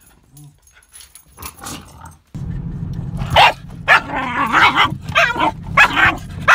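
Pembroke corgi barking and yipping at the sweeping windshield wipers, about six sharp barks in quick succession. Under them is the steady low hum of a car on the road, heard inside the cabin. The first couple of seconds are quiet.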